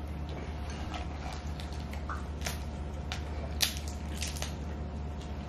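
Boiled crawfish being peeled by hand: shells cracking and snapping with wet squishing, a few sharp cracks, the loudest about three and a half seconds in.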